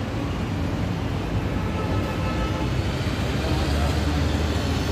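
Low, steady rumble of road traffic and vehicle engines, growing louder about three and a half seconds in.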